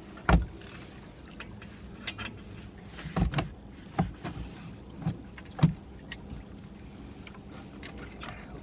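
A series of irregular sharp knocks and clunks aboard a fishing boat, about six in the first six seconds, the first the loudest, over a steady low hum.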